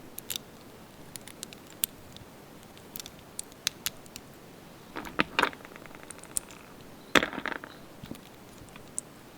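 Small plastic toy pieces being handled, giving scattered light clicks and taps. About five seconds in there is a cluster of taps followed by a quick run of fine clicks, and a louder clatter comes about seven seconds in.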